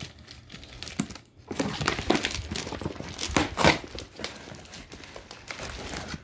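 Plastic packing tape crinkling and tearing as a cardboard shipping box is cut and pulled open, in irregular bursts that are loudest about three and a half seconds in.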